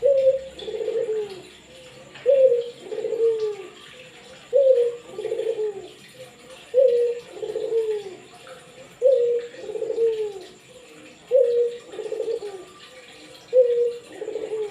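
Barbary dove (burung puter) cooing again and again in a steady rhythm: each coo is a short higher note followed by a longer falling note, repeating about every two and a quarter seconds.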